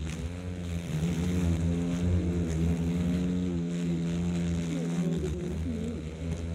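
Japanese giant hornets buzzing in flight close by: a low droning hum of several wingbeats overlapping, some wavering in pitch. One buzz grows steady and loudest from about a second in and drops away a little after five seconds.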